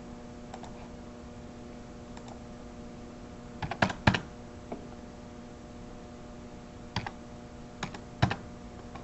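Computer keyboard keystrokes: a quick cluster of three key presses about four seconds in, then a few single presses near the end, over a steady electrical hum.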